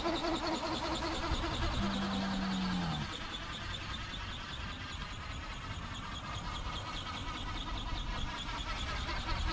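Electric motor and gearbox of a radio-controlled flapping-wing condor model whining in flight, its pitch sliding down and then back up. A brief low hum joins in about two seconds in and drops away about a second later.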